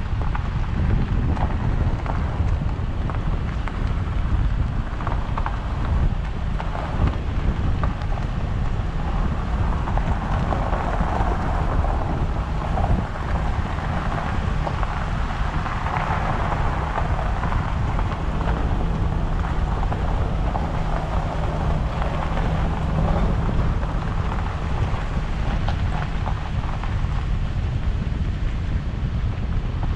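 A vehicle travelling along a road: a steady low engine and road rumble, with wind buffeting the microphone.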